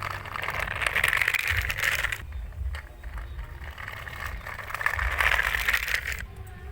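Toy car rolling across a hard surface, its small plastic wheels rattling and scraping in two spells, the first at the start and the second about five seconds in.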